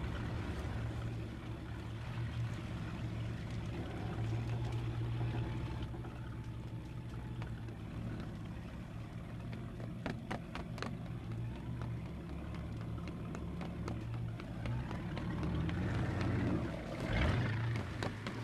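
A boat's engine idling with a steady low drone, with a few faint knocks about ten seconds in.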